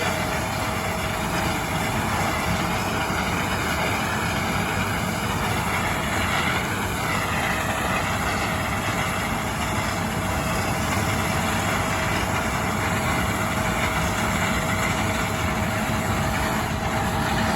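Heavy machinery running steadily: a continuous engine drone with a constant whine and a higher hum that wavers slowly in pitch.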